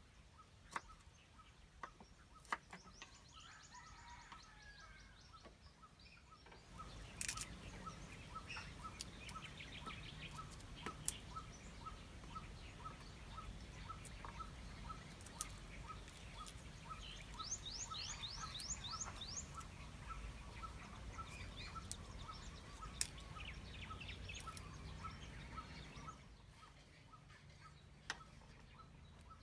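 Birds chirping outdoors in quick rising calls over a steady background hiss. A faint, regular ticking about twice a second comes in about seven seconds in and runs until near the end, with scattered sharp clicks.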